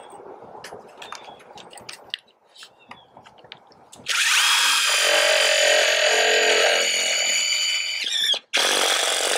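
Faint clicks and knocks, then a DeWalt cordless drill runs steadily for about four seconds, driving a lag screw through a fiberglass gutter. It stops briefly and starts again near the end.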